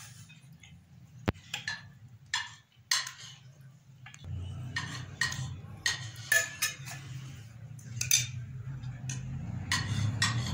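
Metal spoons clinking and scraping against a glass serving dish and glass plates as aash is dished out: a dozen or so short, irregular clinks. A low steady hum sits under them from about four seconds in.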